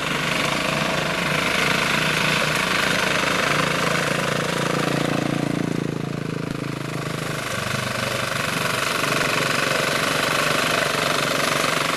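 Engine of a ploughing machine running steadily with a rapid, even pulsing as it ploughs in rice stubble.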